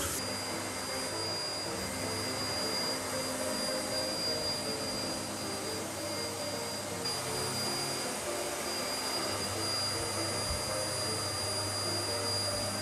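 Canister vacuum cleaner running steadily, its motor giving a high, steady whine over the rush of air.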